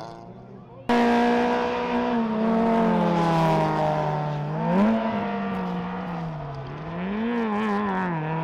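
Rallycross car engine running hard through a bend. The loud engine sound starts abruptly about a second in, and its pitch sinks and then climbs again twice as the car slows and accelerates.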